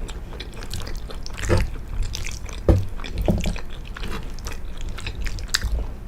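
A person chewing a mouthful of penne pasta in pesto sauce, with many small irregular mouth clicks and a few louder ones.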